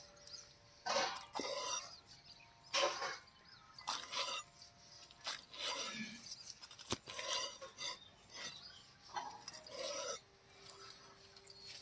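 Large knife slicing goat liver into cubes on a wooden chopping block: a series of short cutting and scraping strokes about once a second, with one sharp tap of the blade on the block midway.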